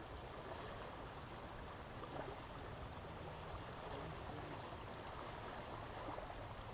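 Steady rush of flowing water, with a bird giving a short, high chip about every two seconds.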